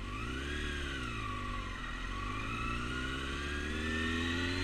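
A 600 cc motorcycle engine revs up briefly and drops back, then climbs steadily in revs from about two seconds in as the bike accelerates.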